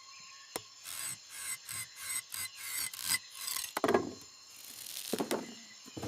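A quick run of rasping, scraping strokes, several a second, then two swishing whooshes falling in pitch: cartoon sound effects.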